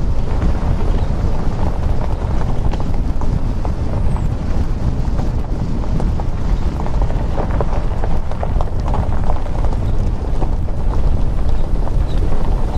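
Car driving on a gravel road: a steady low rumble of tyres rolling over loose stones, with scattered ticks of gravel that come more often in the second half, and wind buffeting the microphone.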